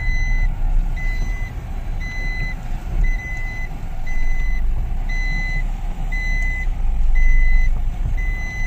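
Car's reverse parking chime beeping at an even pace, about one short beep every three-quarters of a second, heard inside the cabin over the engine's low rumble as the car backs up.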